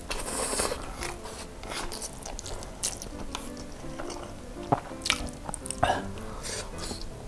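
Close-miked slurping and chewing of spicy noodles: a long slurp at the start, then chewing with sharp wet mouth clicks and smacks, the loudest a little before and after the five-second mark.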